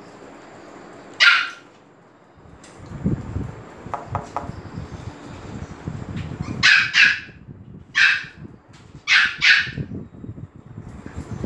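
Small dogs yapping excitedly: six short, high-pitched barks, one about a second in and the rest coming quickly in the second half, some in pairs. Under them is the scuffle of dogs jostling in a dog bed.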